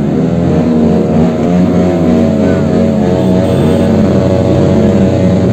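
Motorcycle engine held at high revs, its pitch wavering up and down.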